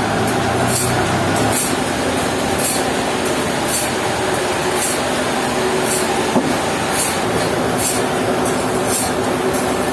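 Sawmill machinery running steadily: a constant motor hum with a short high hiss that comes back about once a second.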